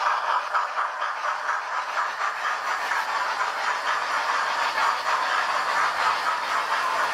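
Model railway trains running past on the layout: a steady whirring of the locomotive motors and metal wheels on the track, with a fine, fast clicking running through it.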